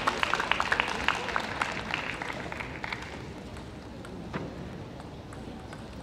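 Audience applause for a won point, many hands clapping, thinning out and dying away over the first three seconds. Then quieter hall ambience, with one light knock about four seconds in.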